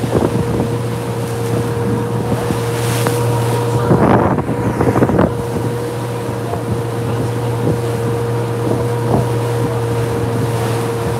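Chase motorboat's engine running at a steady speed with a constant whine, the hull banging and splashing through choppy waves about four to five seconds in, and wind buffeting the microphone.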